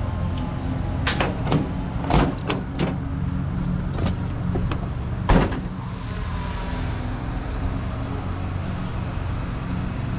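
A steady low motor hum with a series of sharp knocks and clicks in the first half, the loudest about five seconds in.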